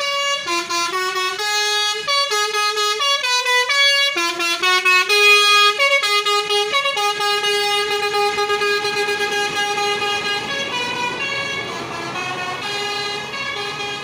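A bus's telolet horn, a multi-tone musical air horn, plays a quick tune of short stepping notes. After about seven seconds it settles into one long held chord that fades near the end.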